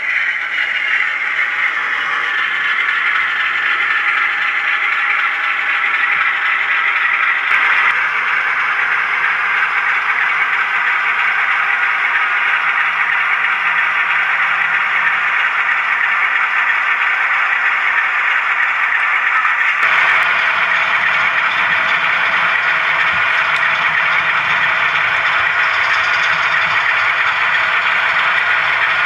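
Model diesel locomotives running with DCC digital sound: engine sound from the onboard decoder speakers over the rattle of model wheels on the track. The sound shifts abruptly about a quarter of the way in, and again about two-thirds of the way through, where a low rumble joins it.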